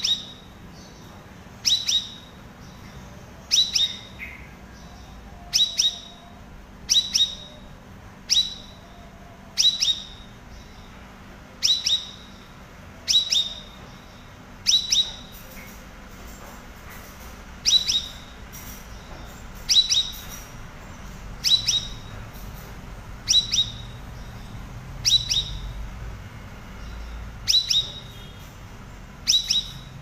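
Caged cucak rawis calling, repeating a short, sharp call every one and a half to two seconds, each call a quick double or triple note dropping steeply in pitch.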